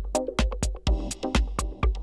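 Electronic dance music with a steady drum beat about two hits a second, synth stabs and a low bass line, played from a vinyl record on a Technics direct-drive turntable.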